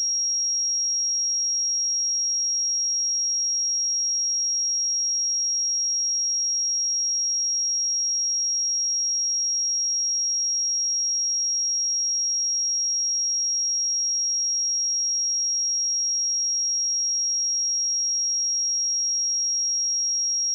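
A steady, unchanging 5613 Hz sine-wave test tone: a single high-pitched pure tone at constant loudness.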